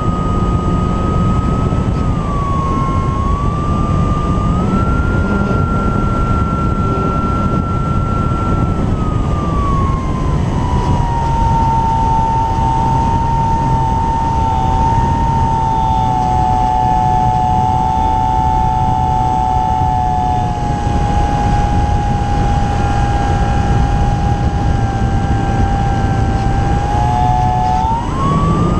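Electric motor and propeller of an Apprentice S 15e RC trainer plane in flight, a steady high whine over heavy wind rush on the airframe-mounted camera. About ten seconds in the whine glides down to a lower pitch as the motor slows, and near the end it climbs again as it speeds back up.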